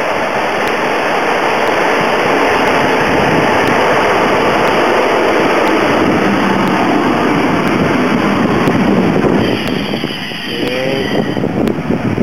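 Belgian SNCB electric passenger train running into a station and past at close range: a loud, steady rush of wheels and carriages. A few brief squeals sound about ten seconds in, as the noise drops.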